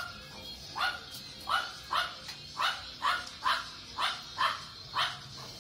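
Small tan-and-white dog barking in a steady run of about ten barks, roughly two a second.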